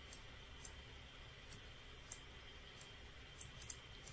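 Computer mouse clicking about ten times at irregular intervals, faint, over a low steady hum.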